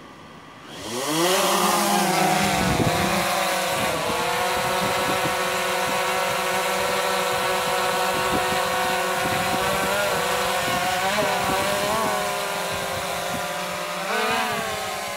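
DJI Phantom quadcopter's motors and propellers spinning up for takeoff about a second in, then a steady high-pitched whine as it flies, with a brief rise in pitch near the end.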